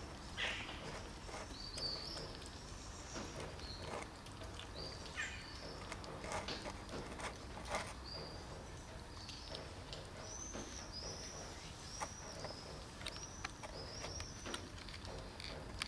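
Kittens eating from a plastic tub: scattered small clicks and smacks of chewing. Over it a small bird chirps again and again, with a quick run of arched chirps in the second half.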